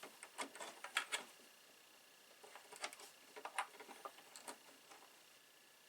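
Irregular clicks and light knocks of small hardware and plastic parts being handled, in two bursts. A faint steady high whine runs underneath.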